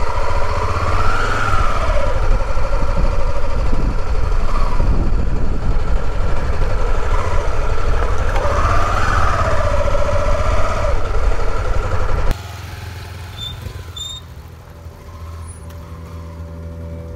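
Motorcycle engine running under way, loud and close, over a steady low rumble, its note rising and falling twice as the throttle opens and closes. About twelve seconds in, the sound cuts suddenly to a much quieter, steady background.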